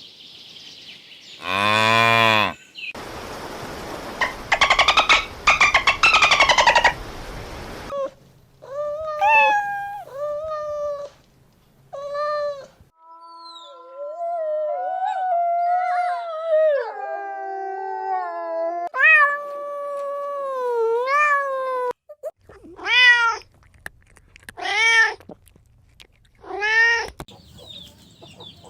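Domestic cats meowing in a string of separate calls: short rising-and-falling meows, a longer wavering stretch of mewing in the middle, and four evenly spaced meows near the end. A harsh, noisy stretch of a few seconds comes early on.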